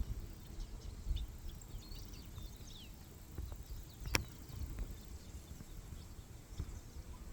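Small birds chirping faintly and in scattered short calls over an uneven low rumble, with one sharp click about four seconds in.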